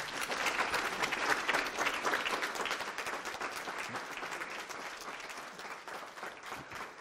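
Audience applauding: dense clapping that builds in the first second or so and then slowly fades.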